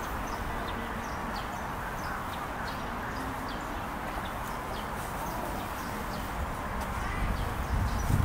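Outdoor park ambience: a steady wash of background noise with small birds chirping often. It grows louder near the end with a low rumble.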